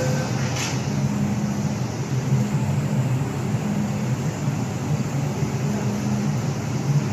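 MTR M-Train running through a tunnel, heard from inside the car: a steady low rumble of wheels and traction equipment that swells and fades, with a brief click shortly after the start.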